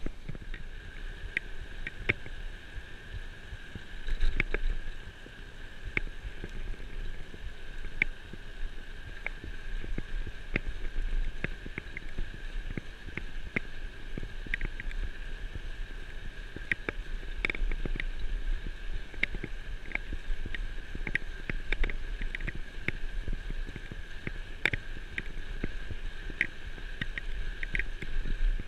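A mountain bike being ridden, picked up by a camera on its handlebars. There is a steady rumble of tyres and wind, with irregular rattles and knocks from the bike and mount jolting over bumps, the loudest about four seconds in. A faint steady high tone runs underneath.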